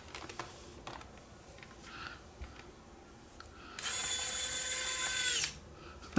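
Small motor of a cordless electric precision screwdriver whining steadily for about a second and a half as it turns a small screw in a camcorder body, its pitch sagging slightly as it stops. A few faint clicks come before it.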